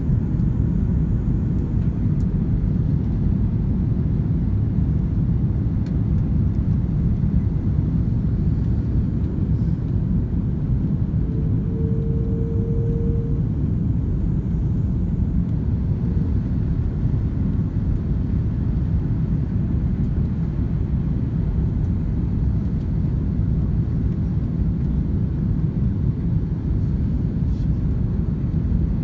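Steady low roar of an Airbus A330-200's engines and airflow heard from inside the passenger cabin during the descent to landing, with flaps extended. A brief steady tone sounds for about a second and a half near the middle.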